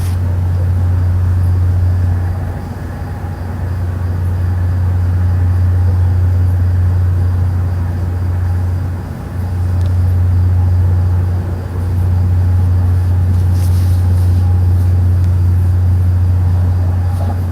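A loud, steady, deep droning hum, one low note held with faint higher tones above it. It dips briefly about three times. This is the kind of unexplained low drone reported as 'strange sounds' or 'trumpets' in the sky.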